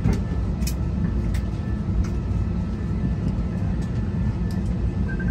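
Steady low cabin drone of a parked airliner, with a few faint clicks.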